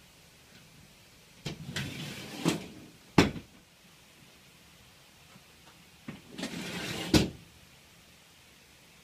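Stainless-steel folding workbench on steel wall uprights being folded flat against the wall and raised again: each time a rough metal sliding rattle ends in a sharp metal clank, once about three seconds in (the loudest) and again about seven seconds in.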